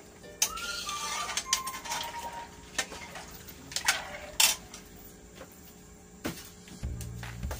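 A metal ladle stirring in a large aluminium wok of coconut-milk curry sauce, scraping and knocking against the pan in a handful of sharp, ringing metal clinks.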